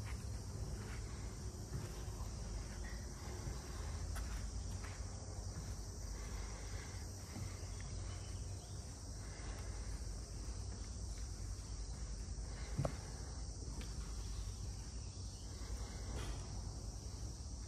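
Outdoor summer ambience: a steady high buzz of insects over a low rumble, with faint scattered ticks and a single sharp knock about thirteen seconds in.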